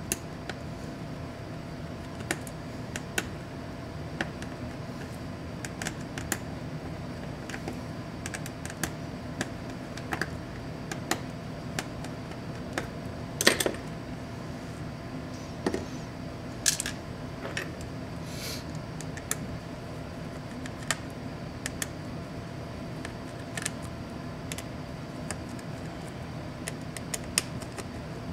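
Scattered small clicks and taps of hands and a screwdriver handling a laptop's display assembly as its metal hinges are unscrewed and lifted off. There is one louder clack about halfway through and a brief scraping rattle a few seconds later, over a steady low hum.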